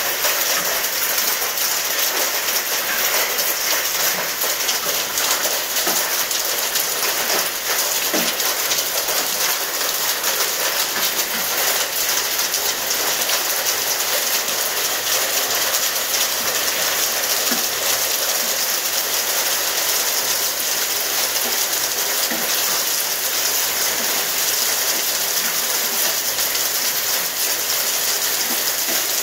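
Half-inch hail falling steadily, a dense rattle of countless small impacts as hailstones strike the patio paving, a glass tabletop and metal chairs.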